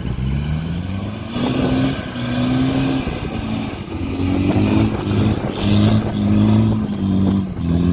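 Land Rover Discovery engine revving hard and repeatedly, its pitch climbing and dropping several times as the 4x4 powers up a soft sand dune under heavy load.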